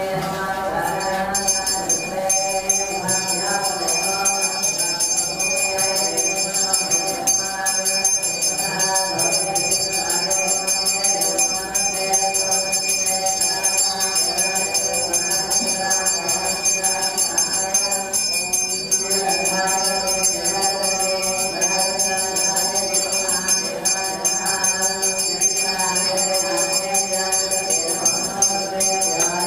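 Chanting of mantras by several voices together, with a hand bell ringing continuously from about a second in.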